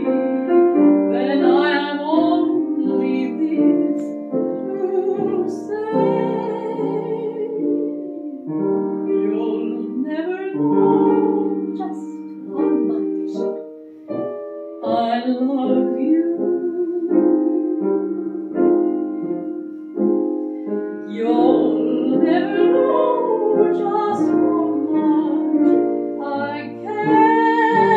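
A woman singing a song with vibrato, accompanied by a grand piano; near the end she holds one long note.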